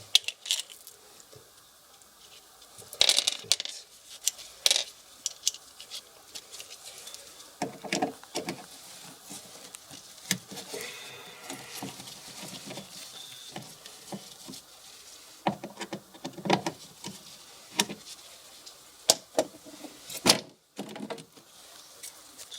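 Irregular clinks, knocks and rattles of hard objects being handled, in scattered clusters with quieter gaps between them.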